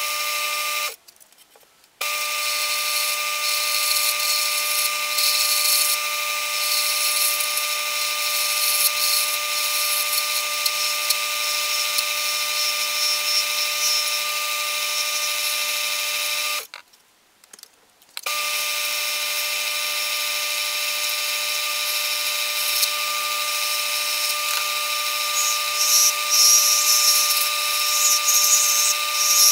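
Old Delta bench-top wood lathe running with a steady motor whine while a hand-held turning tool cuts an acrylic pen blank, adding a hiss of cutting that grows louder in bursts near the end. The sound drops out abruptly twice, about a second in and again a little past halfway, for a second or so each time.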